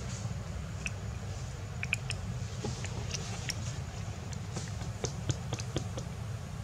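Outdoor background ambience: a steady low rumble with scattered short clicks and ticks.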